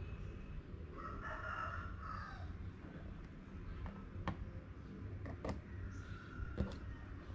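Sharp little clicks of an LED's wire leads being pushed into a plastic solderless breadboard, three of them in the second half. Near the start comes a background animal call of about a second and a half, over a low steady hum.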